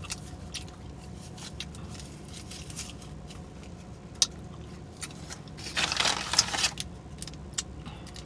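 Close-miked mouth sounds of a person eating a breakfast burrito: wet smacking and chewing clicks, with a short burst of crackling about six seconds in, over a low steady hum.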